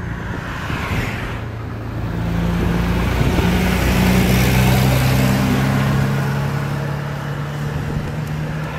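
A truck's engine humming as it passes close alongside, swelling to its loudest about four to five seconds in, over a steady rush of wind and road noise.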